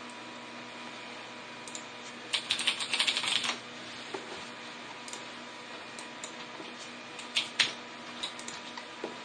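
A quick run of sharp clicking taps about two seconds in, then scattered single clicks, the loudest a little past halfway, over a steady hum.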